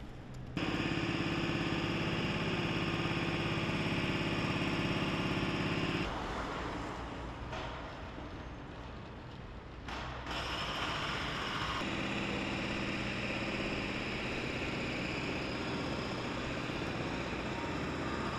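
Street traffic: a steady motor-vehicle engine hum with a low drone, changing abruptly at a few cuts between shots.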